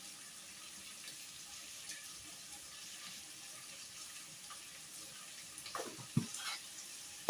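Faint, steady sizzle of beef stew cooking in a pot, with a few light knocks near the end.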